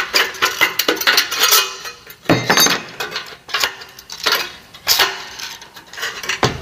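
Hand tin snips cutting through a light-gauge steel stud: a series of sharp cuts about once a second, the thin sheet metal clanking and ringing with each one.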